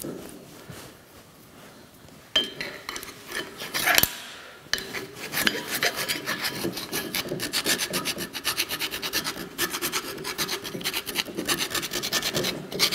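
Hand file rasping on the end of the arbor press's hand-wheel shaft, filing down a mushroomed ridge that keeps the wheel from sliding off. A few scattered strokes and a sharp knock about four seconds in, then quick, even strokes, several a second.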